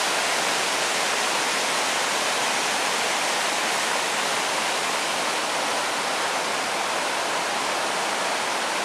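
Creek water rushing over rocks and small cascades, a steady rush that does not change.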